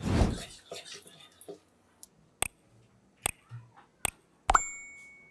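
Metal spatula knocking and scraping in a black iron kadai of hot oil with dried red chilies frying, with a light sizzle that fades within about two seconds. Then come a few sharp separate clicks and, near the end, a metallic clink that rings briefly.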